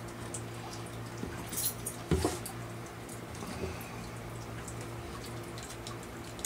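Clear vinyl tubing being worked onto a white plastic pipe fitting by hand: scattered plastic rubbing and knocking, loudest about two seconds in, over a steady low hum.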